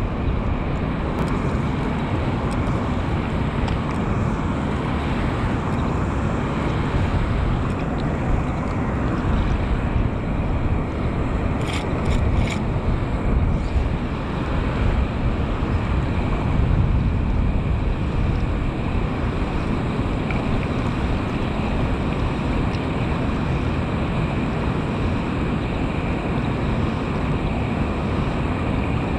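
Steady rush of water pouring from a concrete spillway culvert and churning into the channel below, with wind buffeting the microphone. A few light clicks come about twelve seconds in.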